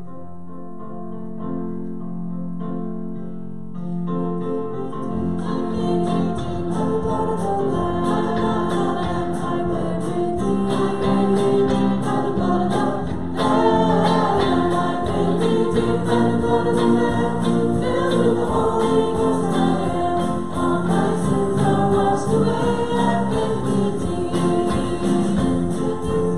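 Congregational singing of a worship song with guitar accompaniment. The guitar plays alone for the first few seconds before the voices come in.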